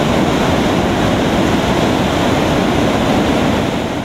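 A flood-swollen river rushing through rapids at a falls: a loud, steady rush of churning water that begins to fade right at the end.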